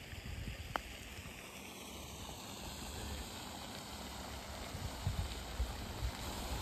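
A single sharp click of a putter striking a golf ball a little under a second in, over steady wind rumble on the microphone.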